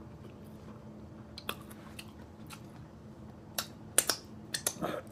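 A person chewing and biting food close to the microphone, heard as scattered sharp mouth smacks and crunchy clicks, a few about a second and a half in and more crowded together in the last second and a half.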